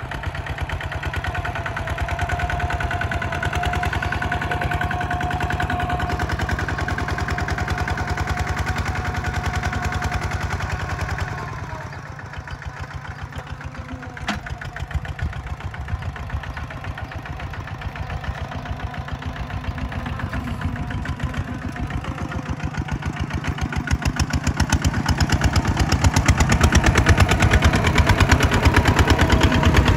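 Kubota ZT140 walk-behind tractor's single-cylinder diesel engine chugging steadily with rapid even exhaust beats as it pulls a disc plough through the soil. It turns quieter about twelve seconds in and grows louder near the end.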